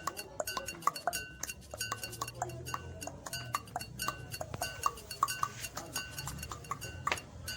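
Rapid tongue clicks made in the mouth, about five a second in an irregular rhythm, many with a short hollow ring like a small cowbell, over a low hum in the middle.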